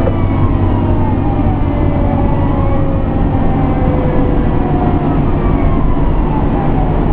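Pierce Enforcer fire engine driving under way, heard from inside its cab: a steady low engine rumble with a siren wailing, its pitch rising and falling slowly.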